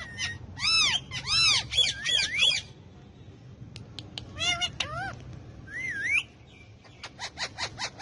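Indian ringneck parakeets calling to one another: a run of loud arched, ringing calls in the first few seconds, a few more calls around the middle, then a quick series of short sharp notes, about five a second, near the end.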